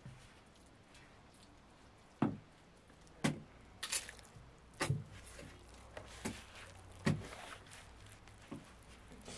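A series of about seven separate knocks, unevenly spaced roughly a second apart.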